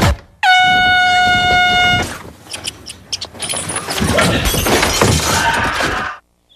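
An air horn blasts once, a single steady blare lasting about a second and a half. It is followed by about four seconds of clattering, crashing noise that cuts off suddenly.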